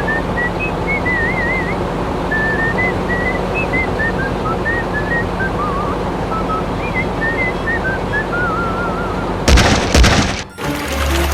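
Warbling, chirping bird-like calls over a steady hiss and low hum, broken about a second before the end by a loud sudden thump.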